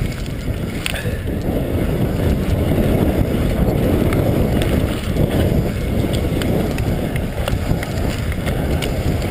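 Wind buffeting a body-mounted action camera's microphone on a fast mountain-bike descent, with tyres running over dry dirt and frequent small rattles and clicks from the bike over bumps.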